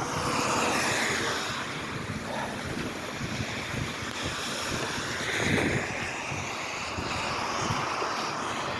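Wet, windy outdoor noise: a steady rushing hiss of wind and rain on the microphone, swelling louder twice, once near the start and again about five and a half seconds in.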